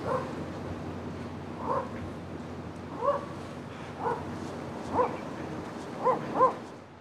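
Dog barking in short yips, about one a second, with two quick yips close together near the end.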